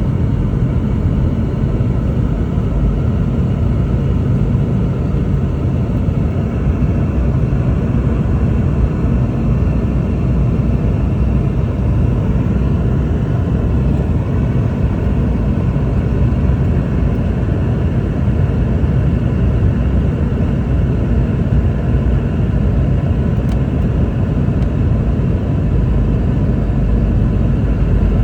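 Steady cabin noise inside a Boeing 717-200: a loud, even rumble of airflow and its rear-mounted Rolls-Royce BR715 engines.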